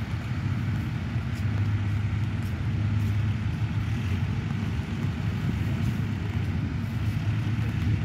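Tractor engine running steadily under load as it pulls a plough through the field.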